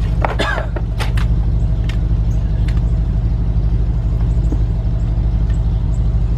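An engine idling steadily: a low rumble with a fast, even pulse. A few sharp clicks come in the first second or so.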